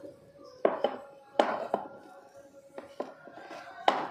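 Wooden rolling pin knocking against a plastic cutting board while dough is rolled out: about six short, sharp knocks at uneven intervals.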